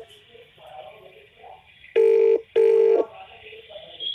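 Telephone ringback tone on a recorded phone call: one double ring, two short steady tone pulses about two seconds in, over faint line hiss.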